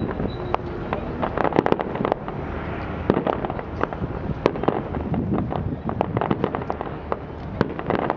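Aerial fireworks bursting: a dense, irregular run of sharp pops and bangs, several a second, from exploding shells and crackling stars.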